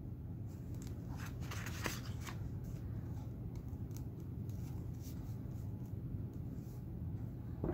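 Faint rustling and light clicks of paper and sequined lace trim being handled and pressed into place on a journal page, over a low steady hum.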